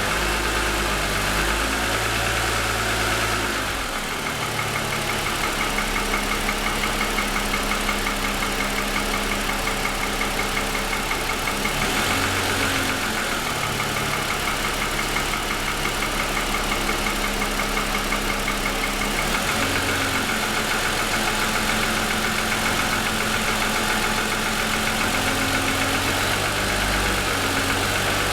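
2007 Lexus ES350's 3.5-litre V6 idling with a steady, rapid knocking: piston slap, which the owner says is very pronounced for about ten minutes after a cold start.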